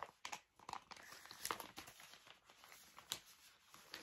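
Faint, intermittent crinkling and rustling of plastic packaging as a cross stitch kit is handled, with a few small clicks.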